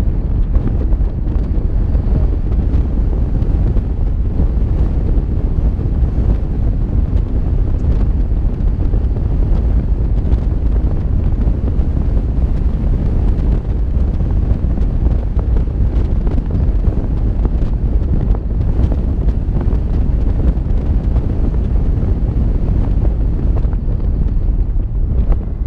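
Wind buffeting the microphone of a camera on a moving car: a loud, steady low rumble with no breaks.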